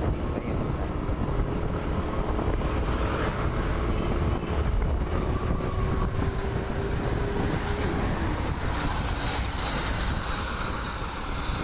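Yamaha Aerox 155 scooter being ridden: steady engine drone under road and wind rumble, the engine note easing off slightly about eight seconds in.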